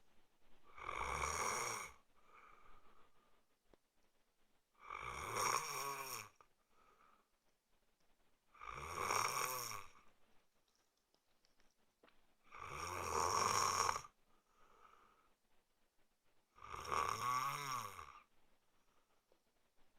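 A man snoring in his sleep: five loud snores, evenly spaced about four seconds apart, each lasting a second or so, with a fainter breath between them.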